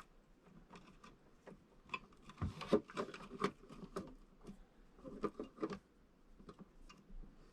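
Scattered light clicks, taps and rustles of hands handling cables and small fittings, with a denser run of knocks about two and a half to three and a half seconds in.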